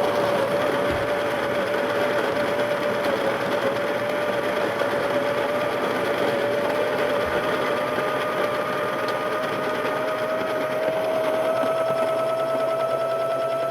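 Baratza Preciso conical burr coffee grinder running steadily as it grinds a large batch of coffee beans. The motor's even hum creeps slightly higher in pitch in the second half.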